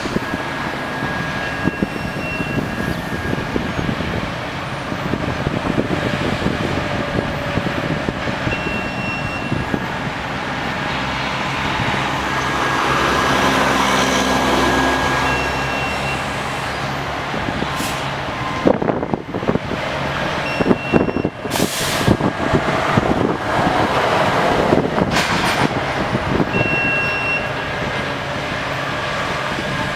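Rail crane's diesel engine running steadily, swelling louder for a few seconds in the middle as the boom works. A short high beep repeats about every six seconds, and a string of sharp knocks comes in the second half.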